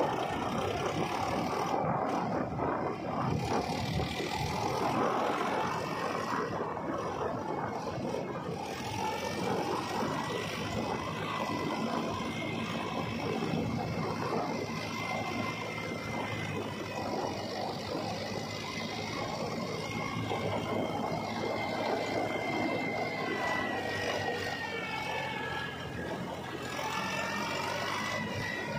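Mahindra 275 DI two-wheel-drive tractor's three-cylinder diesel engine running steadily under load, hauling a trolley loaded with soil through mud, with a high whine that wavers slowly in pitch.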